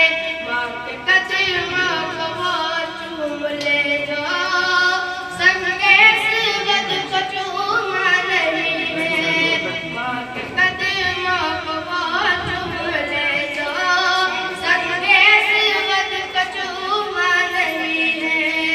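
A boy reciting a naat: one unaccompanied young voice singing long, ornamented melodic lines, with short breaks between phrases.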